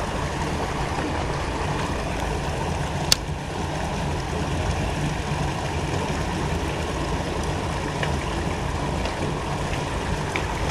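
Steady rush of water pouring through a concrete culvert into the canal, with one sharp click about three seconds in.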